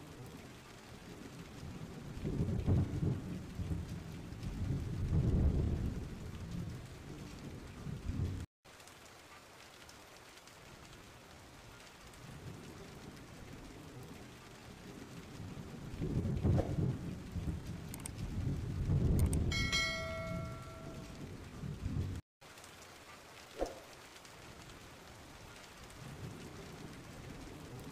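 Steady rain with two long, low rolls of thunder. The sound cuts out for an instant twice.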